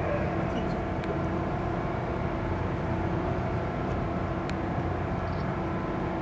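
Steady low drone of a ship's engine machinery, with an even hum over the rumble and a couple of faint clicks.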